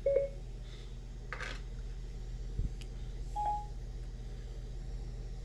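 Steady low electrical hum, with two short electronic beeps, one at the start and a slightly higher one past the middle, plus a brief hiss and a single click between them.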